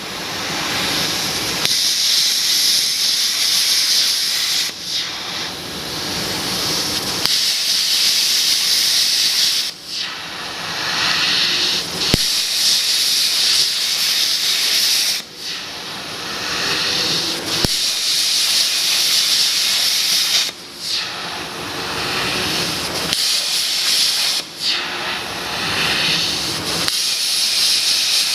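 Hypertherm XPR300 plasma torch cutting on a CNC table: a loud, steady hiss that breaks off briefly every few seconds as the arc stops and restarts for the next cut.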